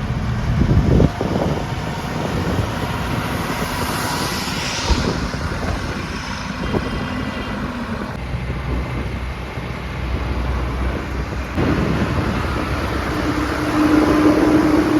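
Diesel engine of a JCB 3DX backhoe loader running while it digs and loads, its note rising and falling with the work. A steadier, higher engine tone comes in near the end.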